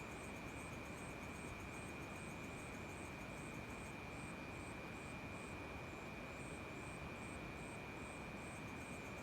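Night chorus of crickets: one steady, unbroken high trill, with a higher insect chirping in a regular rhythm of about two to three chirps a second above it, over a steady hiss.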